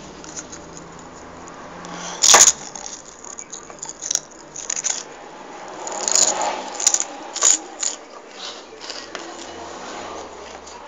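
Clicks and taps of small plastic toys and a cup handled on a tabletop: one loud knock about two seconds in, then a run of light clicks a few seconds later.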